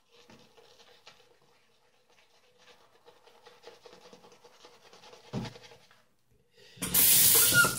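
Kent BK8 shaving brush face-lathering soap over stubble: a soft, continuous scratchy rubbing. A short thump comes about five seconds in, and a much louder rushing burst lasts about a second near the end.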